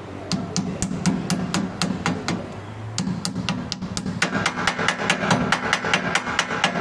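Hammer tapping on metal in quick, even strokes, about four a second, quickening to about six a second a little past the middle.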